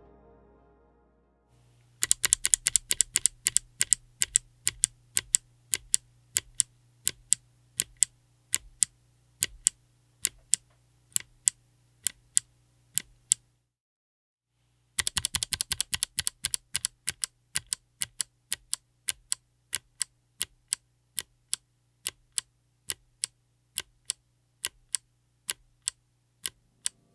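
Kailh BOX Midnight Jade clicky mechanical keyboard switches with polycarbonate housings being pressed. Each press gives a sharp, crisp click. It starts with a fast flurry of keystrokes, then single presses about one to two a second. After a pause of about a second and a half, there is another fast run, then slower single presses again.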